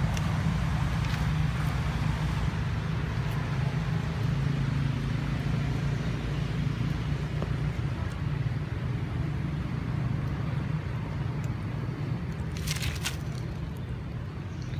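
A steady low rumble of background noise, like distant motor traffic, with a few faint clicks and a short crackle near the end.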